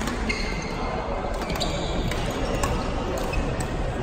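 Badminton rackets striking shuttlecocks: several sharp pops at irregular intervals from the courts, over a steady background din.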